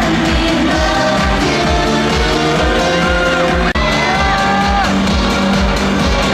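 Live J-pop concert music at a loud, even level: a steady drum beat under a girl group's sung melody, with the crowd shouting now and then. The sound drops out sharply for an instant a little past halfway.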